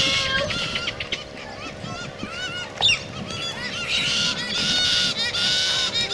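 Galahs calling: many short, high chattering calls in quick succession, quieter in the middle and busier again from about four seconds in. A single sharp click about three seconds in.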